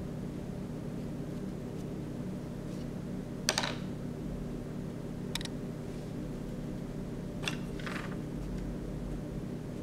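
A paintbrush making four short strokes on paper, the first one, a little over a third of the way in, the loudest, over a steady low hum.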